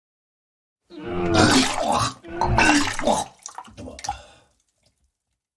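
Gross-out bathroom sound effect of a character sick from an undercooked burger. There are two long, loud bursts of straining, voice-like noise that slide down in pitch, mixed with water splashing, then a shorter, weaker one near the end.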